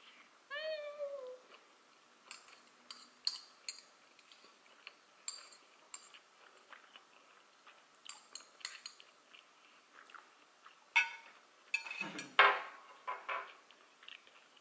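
Close-up eating sounds: metal chopsticks clicking against a ceramic sauce dish and plate, and chewing, with a louder run of chewing noises near the end. A short high-pitched call with a falling pitch sounds about half a second in.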